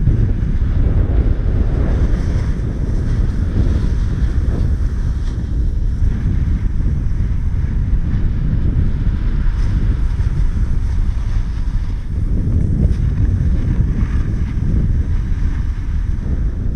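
Wind buffeting the microphone of a pole-held action camera during a snowboard run, a steady heavy rumble, with the hiss of the board sliding over the snow underneath.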